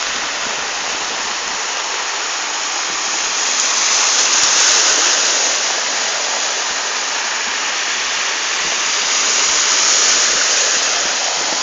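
Steady rushing hiss of rain and water on a flooded street, swelling about four seconds in and again near ten seconds.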